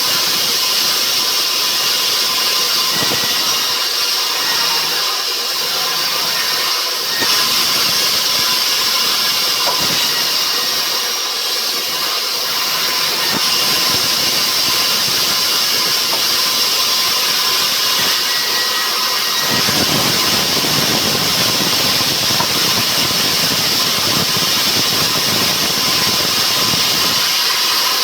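Sawmill saw running steadily, with a loud high hiss. About twenty seconds in, a heavier, rougher lower sound joins and holds.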